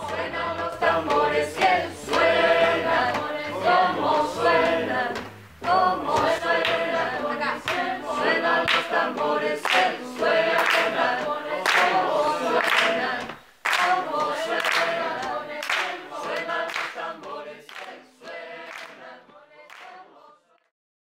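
A group of voices singing together a cappella, with sharp percussive hits about once a second accenting the rhythm; it fades out near the end.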